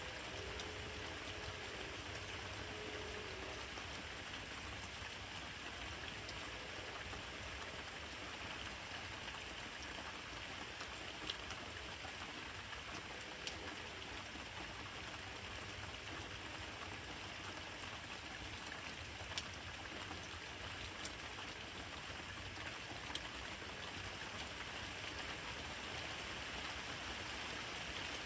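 Steady rain falling at night, an even hiss with a handful of sharp single ticks from drops landing close by.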